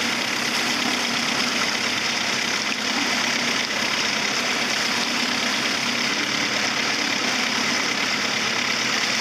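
Boat engine idling steadily under a constant hiss.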